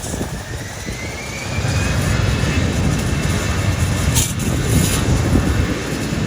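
Jet airliner engines with a faint rising whine, and a low rumble that grows louder about a second and a half in.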